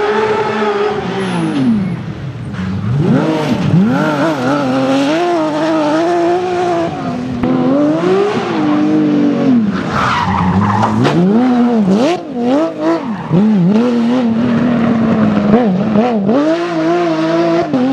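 Porsche 911 GT3 rally car's flat-six engine revving hard, its pitch climbing and dropping again and again as it accelerates, shifts and lifts off, with sharp falls about 2 s, 7 s and 12 s in.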